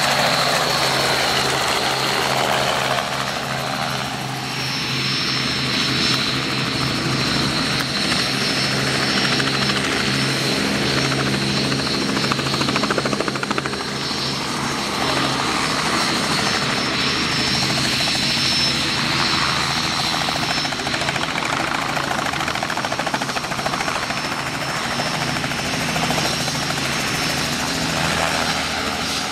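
A small two-bladed Robinson piston helicopter hovering and manoeuvring low and close, its rotor and engine running steadily with a high whine over them. The sound swells and shifts as the helicopter moves back and forth.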